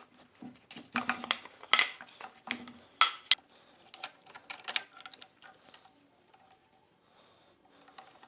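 A wrench clinking and clanking on steel as the recessed spring-tension adjusting nuts of a power hammer are turned tighter. The sharp metal clicks come in a cluster over about the first five seconds, then it goes quieter.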